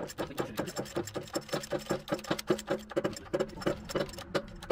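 Hydraulic shop press pumping, a rapid, even chattering of about six clicks a second, as it drives a new front wheel bearing into a steering knuckle before the bearing loads up.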